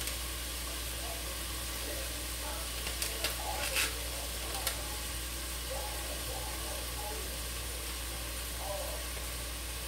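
Ground beef sizzling steadily as it browns in a pot, with a few sharp clicks about three to four seconds in.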